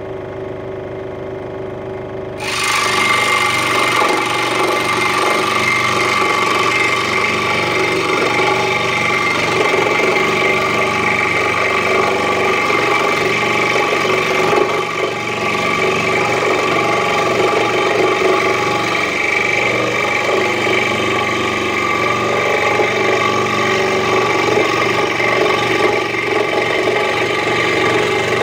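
Central Machinery 16-inch scroll saw running at full speed; about two seconds in the blade bites into half-inch particle board and the sound jumps to a loud, steady cutting noise as it works along a curve, easing briefly about halfway.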